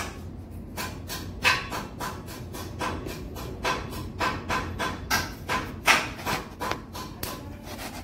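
Knife working the end of a heavy electrical cable to strip its insulation: a run of short, sharp scraping strokes, two or three a second, irregular in strength.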